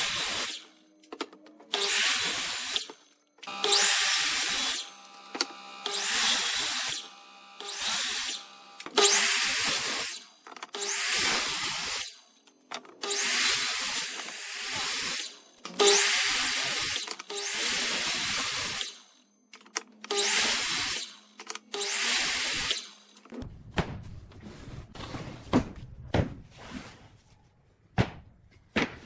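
A power tool run in over a dozen short bursts of about a second each, then a run of sharp knocks and taps near the end.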